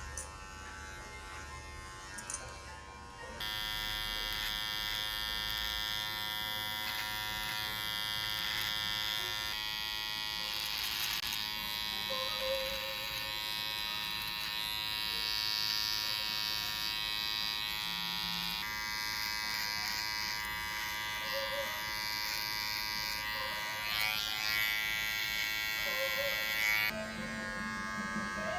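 Electric beard clipper buzzing steadily as it fades the sides of a beard. It gets louder a few seconds in and drops back near the end.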